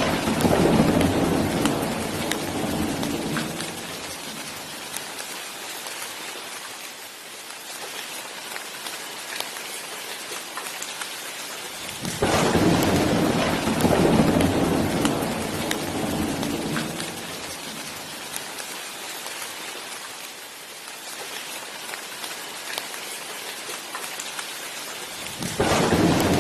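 Steady rain with rolling thunder. A rumble dies away over the first few seconds, another breaks in suddenly about halfway through and fades slowly, and a third begins just before the end.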